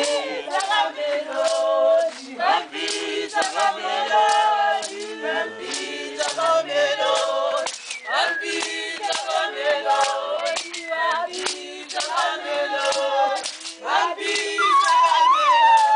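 Background music: a choir of voices singing, with sharp percussive beats at a regular pace.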